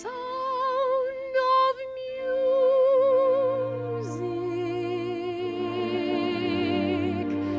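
A woman's voice singing over instrumental accompaniment: one long note with vibrato, dropping to a lower held note about four seconds in.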